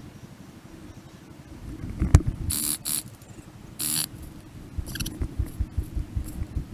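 Field audio from an airsoft game sped up four times: a fast run of low thuds and rustling, with a few short, loud high-pitched hissing bursts around the middle.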